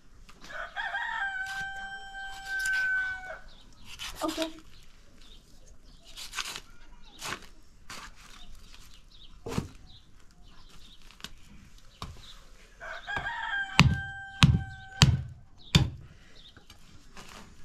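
A rooster crowing twice, each crow long and held, about a second in and again near the end. Heavy knife chops into goat meat on a wooden log block: one about halfway through, then a quick run of four louder chops during the second crow.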